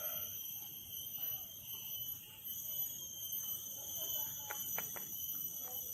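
Steady high-pitched insect drone, several shrill tones held without a break, with a few faint clicks about four and a half seconds in.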